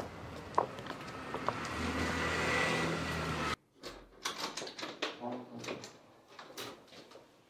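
Outdoor street ambience with footsteps and a vehicle getting louder, cut off abruptly about three and a half seconds in. It gives way to a quieter room where a door latch clicks and a wooden door knocks as it is opened.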